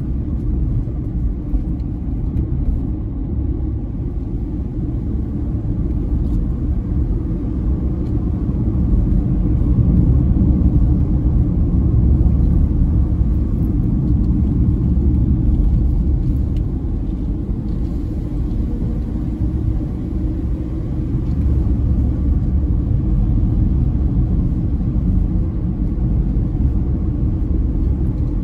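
Steady low rumble of a car driving along a lane, heard from inside the cabin: tyre and engine noise that swells a little about ten seconds in and eases off again.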